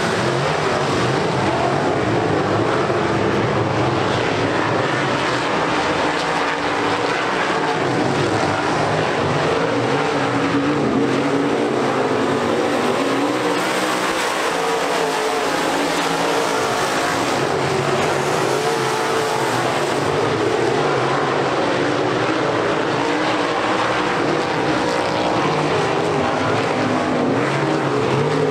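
A pack of UMP dirt modified race cars running their V8 engines hard at racing speed, several engines sounding at once in a steady loud drone whose pitches waver up and down.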